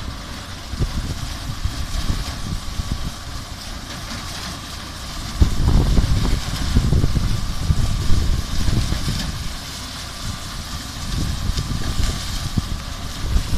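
Engine of a broomcorn cutting-and-tying machine running steadily, with wind buffeting the microphone in heavy low gusts, strongest from about five seconds in.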